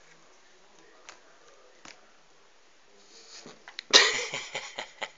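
Kittens tumbling down off the sofa: a sudden loud rustle and thump about four seconds in, then about a second of scrambling with quick scratchy clicks.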